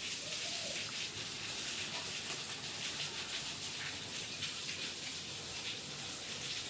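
A steady, even hiss with no distinct events, strongest in the high range.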